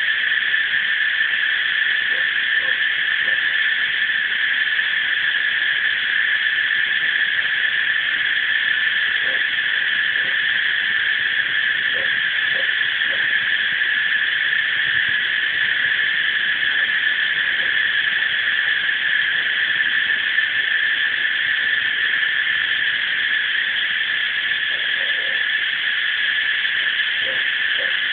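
Tropical cicadas in a continuous, steady, high-pitched chorus, with a few faint short calls now and then underneath.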